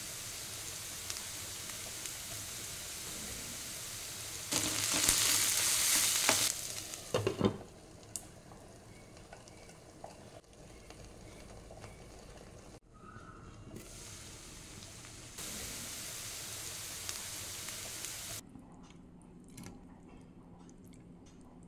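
Ivy gourd slices frying in a pan, sizzling steadily, louder for a couple of seconds about five seconds in while being stirred, with a few scraping knocks of the spatula. Afterwards the sizzle turns faint and muffled under a glass lid.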